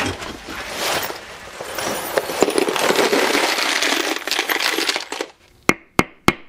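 Rummaging through spare hardware: small metal parts such as screws and nuts clinking, with plastic rustling, for about five seconds. Near the end, three sharp, evenly spaced ticks, about three a second.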